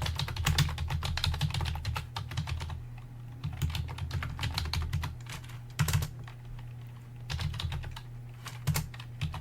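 Computer keyboard typing: a password being keyed in, a quick run of keystrokes, then shorter bursts and single key presses with pauses between.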